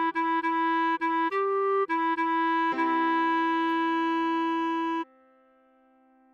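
Clarinet playing quick repeated notes on one pitch, a short higher note, then a long held lower note that stops about five seconds in, leaving a faint lingering tone.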